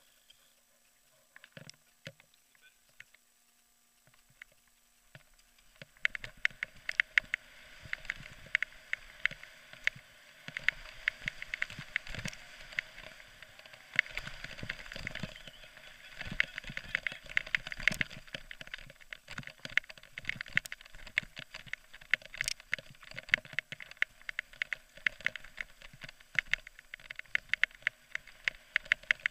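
Downhill mountain bike rattling and clattering over a rough forest trail: a dense run of rapid clicks and knocks that starts about six seconds in, after a stretch of near silence.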